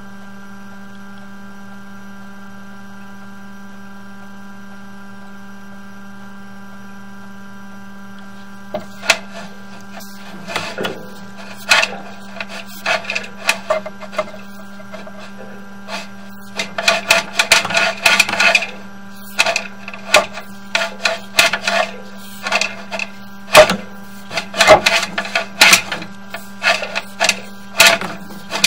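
Steady electrical hum from a sewer inspection camera rig. From about nine seconds in it is joined by irregular clicks, knocks and rattles in clusters as the camera head and push rod are worked back and forth against a fitting in the pipe.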